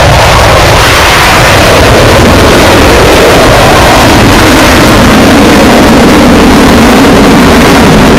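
Avro Vulcan's four Rolls-Royce Olympus jet engines roaring at take-off power as the bomber lifts off and climbs steeply. The sound is loud and steady and drives the recording close to full scale.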